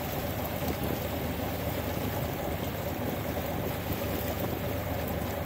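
Steady rush of water along the hull of a sailboat under way on a river.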